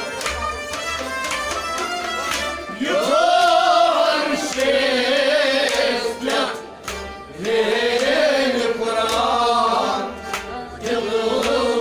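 Kashmiri Sufi song: harmonium and a plucked rabab play, with rhythmic strumming at first. A man's voice enters about three seconds in and again around seven seconds, singing long phrases that swoop up and bend.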